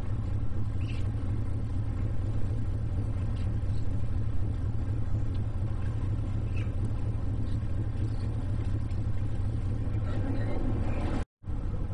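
Steady low rumble of boat engines running close by as a towboat holds against a docking yacht, cut off by a brief dropout near the end.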